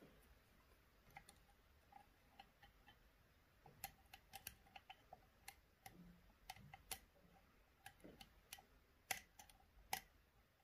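Light, irregular metallic clicks of a lock pick working across the pin stacks of an Assa D12 version 2 lock cylinder under tension. A few clicks stand out louder, about four seconds in and again near the end.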